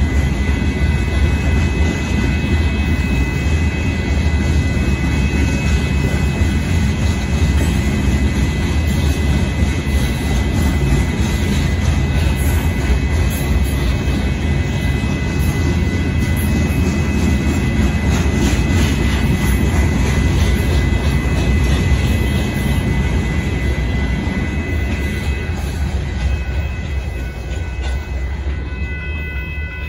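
Freight train of loaded gravel hopper cars rolling past a grade crossing: a steady low rumble with wheel clatter, along with steady high ringing tones. The rumble eases off a little over the last several seconds.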